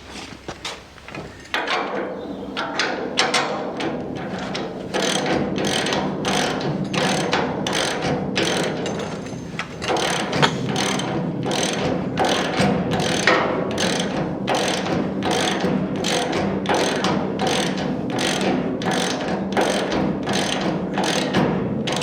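Hand ratchet wrench clicking in repeated back-and-forth strokes, running nylock nuts down onto suspension bolts; it starts about a second and a half in and pauses briefly near the middle.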